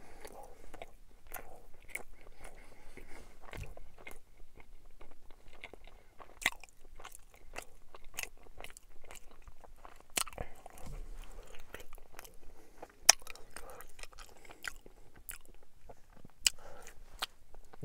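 Chewing a mouthful of soft bread-and-braunschweiger sandwich, with irregular wet mouth clicks.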